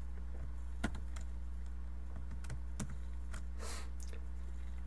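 A few scattered single clicks at a computer, keys or mouse buttons, with a brief rustle about three and a half seconds in, over a steady low electrical hum picked up by the microphone.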